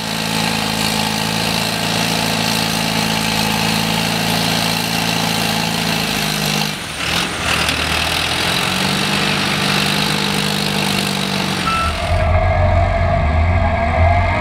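Diesel engine and hydraulics of a 2004 Watson 2500 crawler-mounted foundation drill rig running steadily. About twelve seconds in the sound turns deeper and louder as the auger drills into the ground.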